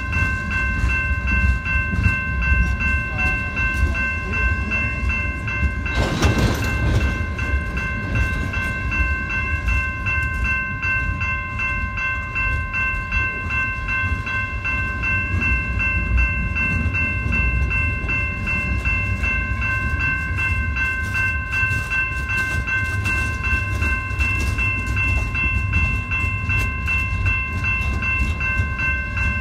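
Freight train of tank cars, boxcars and lumber-loaded flatcars rolling past with a steady low rumble of wheels on rail, under the continuous ringing of the grade-crossing bell. A brief rush of noise about six seconds in.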